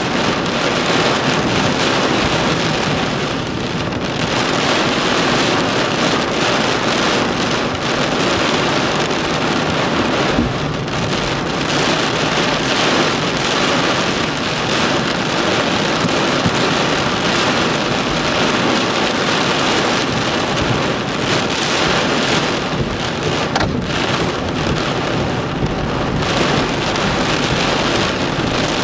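Heavy downpour pelting a car's roof and windshield, a loud, steady rush of rain.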